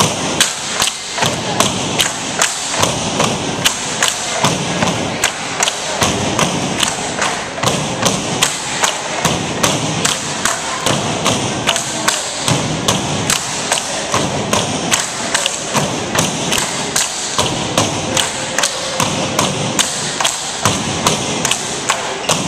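Tinikling poles being struck on the wooden gym floor and knocked together by the seated pole holders, a steady, even rhythm of sharp knocks.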